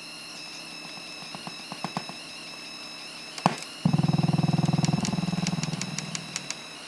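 Modified CRT television running with its horizontal deflection coil on the vertical supply: a steady high-pitched whine with scattered light clicks. A sharp click comes about three and a half seconds in, and a loud rapid buzz starts just after it and fades over about two seconds.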